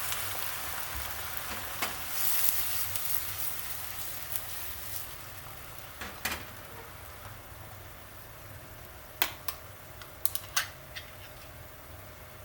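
Food sizzling in a frying pan as it is stir-fried, the hiss slowly dying down. A utensil clicks against the pan now and then, several times in quick succession near the end.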